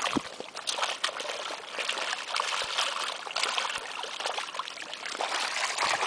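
Shallow lake water sloshing and trickling as a black fabric carp sling is swished and rinsed in it by hand, with small splashes throughout.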